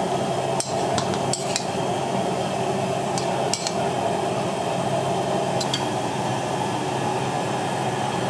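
Scattered clinks and clatter of dishes and utensils over a steady hiss and low hum.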